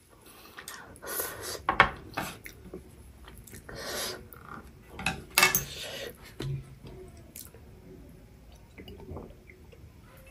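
Wooden chopsticks clicking and scraping on a plastic food tray, then a glass bottle handled and drunk from, with scattered short clicks and brief rustling bursts.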